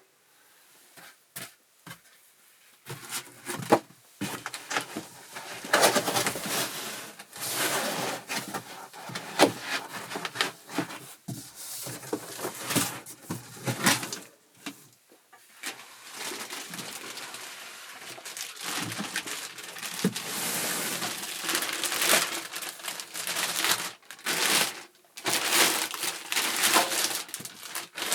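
Packaging being handled and unwrapped: irregular crinkling and rustling with sharp clicks and knocks, starting about three seconds in after a near-quiet opening with a single click.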